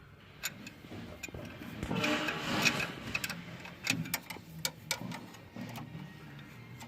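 Hand tools working on a tractor's metal parts: scattered sharp clicks and clinks of wrenches and sockets against metal, with a denser rasping stretch about two seconds in.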